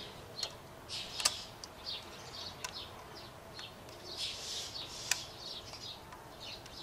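Songbirds chirping steadily, with two sharp clicks about a second in and about five seconds in from the timing chain being worked onto its sprockets by hand.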